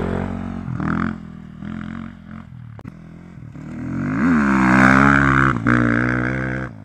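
Sherco SEF-R 450 single-cylinder four-stroke enduro engine through a full Akrapovič exhaust with the dB killer removed, revving hard in short bursts under acceleration. About four seconds in it climbs into a long, loud full-throttle pull that cuts off near the end.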